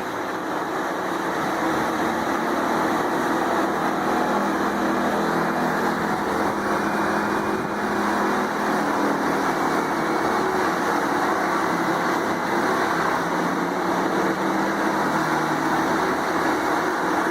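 Morbark drum chipper running steadily: a continuous, even machine noise with a low steady hum underneath.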